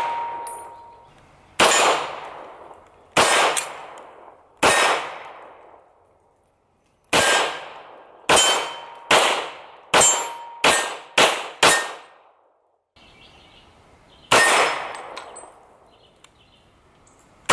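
Hi-Point .40 S&W pistol fired slowly: eleven shots, three spaced about a second and a half apart, a pause, a quicker string of seven over about four and a half seconds, then one more near the end. Steel targets ring after some of the hits.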